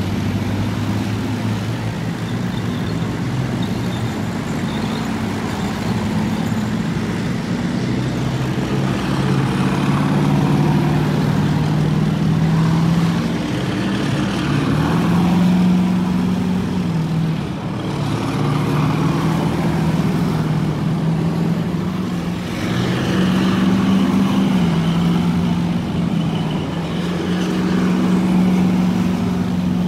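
Column of heavy tracked military vehicles, among them an armoured carrier and a self-propelled howitzer, driving past one after another. Their diesel engines give a deep, steady drone whose pitch shifts and swells as each vehicle goes by.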